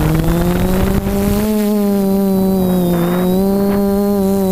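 FPV multirotor drone's electric motors and propellers whining under throttle as it lifts off and climbs, heard from the onboard camera. The pitch rises steadily for about a second and a half, then holds level with a slight dip about three seconds in.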